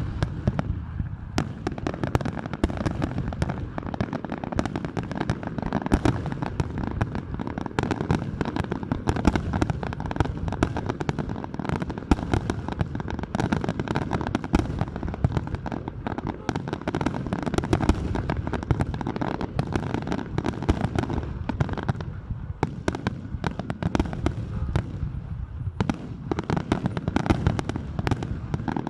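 Large fireworks display: a dense, continuous barrage of shell bursts, bangs and crackling, thinning briefly about three-quarters of the way through before picking up again.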